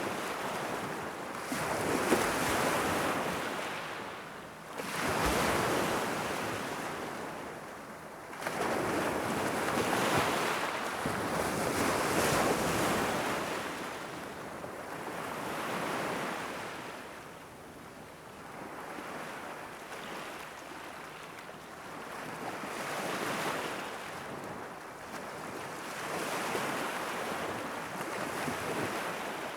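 Irish Sea waves washing in against the shore, in surges that swell and fall back every few seconds, louder in the first half.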